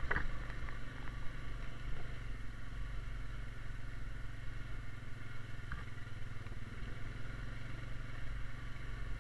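Honda Rubicon 520 ATV's single-cylinder four-stroke engine running steadily as it drives along the trail. At the very start, a brief swish of leafy branches brushes past.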